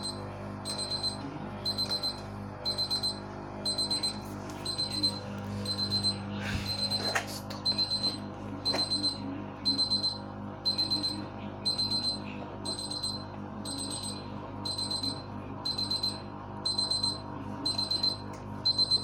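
LG WD-80155NUP washing machine's electronic buzzer sounding its end-of-cycle signal: bursts of rapid high-pitched beeps, about one burst a second, over a steady low hum.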